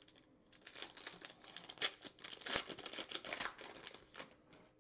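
Foil wrapper of a trading card pack crinkling and tearing as it is pulled open by hand, a dense crackling that lasts about four seconds.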